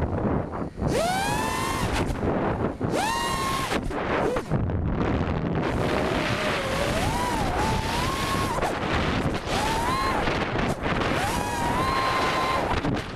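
FPV quadcopter's Cobra 2204 2300KV brushless motors and Dal 5040 propellers whining through several throttle punches: each time the pitch sweeps up fast, holds high and steady, then falls away. Wind rushes over the onboard microphone throughout.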